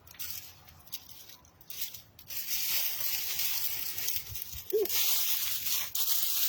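Hands or a small trowel digging and scraping through loose garden soil in a raised bed: a few faint scuffs, then from about two seconds in a steady gritty rustle of soil being pushed over a replanted potato.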